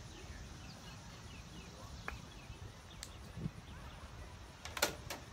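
Outdoor ambience: a steady low rumble of wind on the microphone, with a few sharp clicks, one about three seconds in and a quick group of three near the end.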